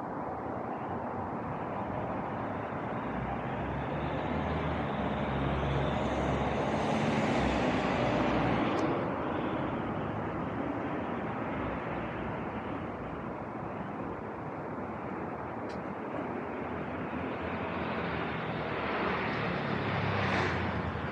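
Street traffic: a vehicle passes slowly with a low rumble that builds to a peak about seven seconds in and fades, and a car passes close near the end.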